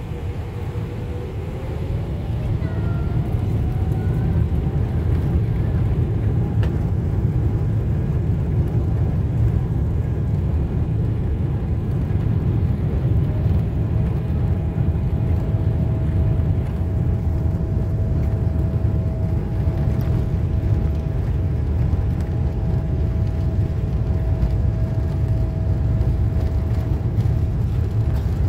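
Boeing 777-300ER's GE90 engines heard from the cabin while taxiing: a deep steady rumble, with an engine whine that rises in pitch and gets louder over the first few seconds as thrust comes up, then a steady whine from about halfway on.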